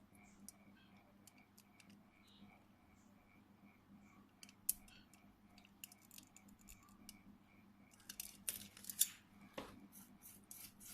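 Faint small clicks and scrapes of tools and thin wires being handled at the workbench, growing into a denser run of scraping clicks near the end. Under it runs a faint steady ticking, about four ticks a second.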